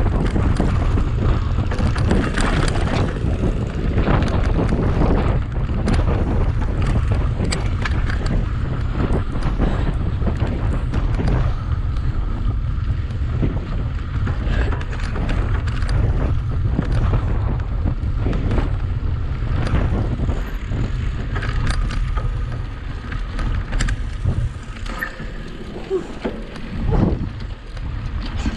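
Wind buffeting the microphone of a camera on a mountain bike moving at speed. Under it runs a steady low rumble, with frequent rattling clicks and knocks from the bike on rough ground. It all eases off a little near the end.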